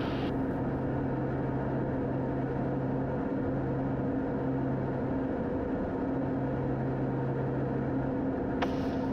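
Steady cockpit drone of a Beechcraft King Air 200's twin PT6 turboprop engines and propellers, with a held low hum, props set full forward for landing. A single sharp click near the end.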